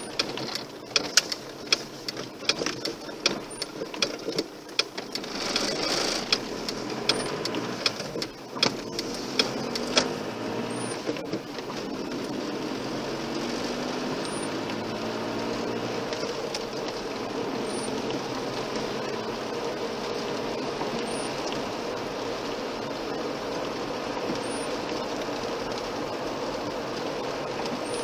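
Car driving, heard from inside the cabin: for the first ten seconds a run of irregular sharp clicks and knocks over the engine and tyre noise, then the engine rises in pitch as the car picks up speed and settles into a steady drone of engine and road noise.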